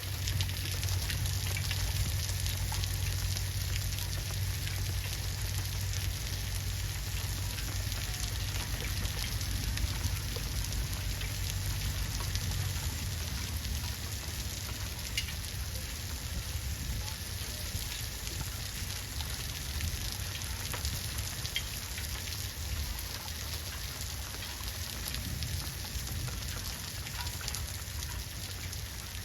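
Steady rain falling, a continuous hiss of drops with many fine ticks. A low steady hum runs underneath for about the first dozen seconds.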